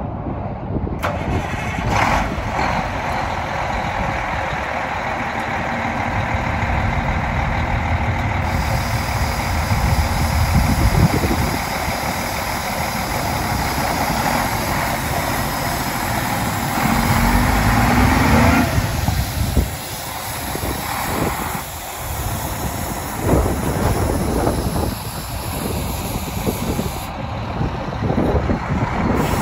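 Freightliner semi truck's diesel engine idling steadily, with a brief rise in engine speed about seventeen seconds in.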